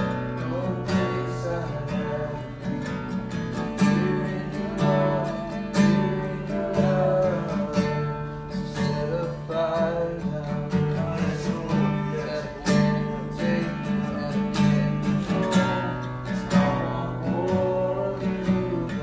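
Acoustic guitar strummed in a slow, unhurried instrumental worship passage, over steady sustained low notes.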